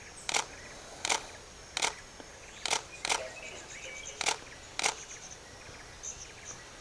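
A camera shutter firing seven single frames at uneven intervals, each a short sharp click.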